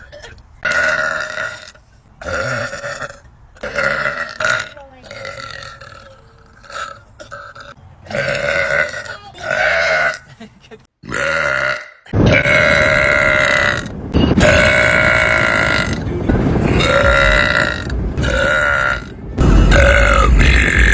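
A woman burping again and again: a string of short burps, then from about halfway through long, loud, drawn-out burps.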